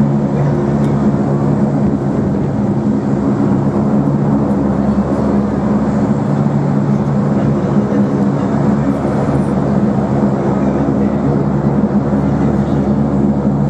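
An engine running steadily at one even pitch, a constant drone with a low hum.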